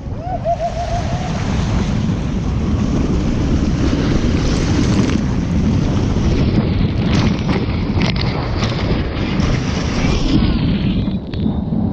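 Rushing water and wind buffeting the microphone while riding head-first on a mat down a racing water slide.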